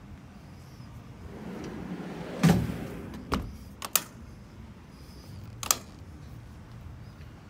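Rear under-tray trundle drawer sliding shut on its metal runners, ending in a loud clunk about two and a half seconds in, followed by a few sharp metallic clicks and knocks.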